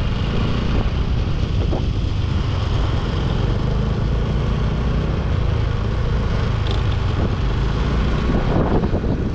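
Motor scooter engine running at steady riding speed, with wind rumbling on the handlebar-mounted microphone.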